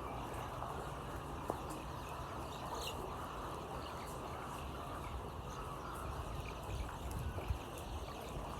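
Chickens calling faintly now and then over a steady rushing background noise.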